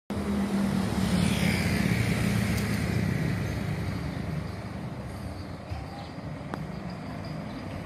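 Low engine rumble with a faint falling whine, louder for the first few seconds and then fading away.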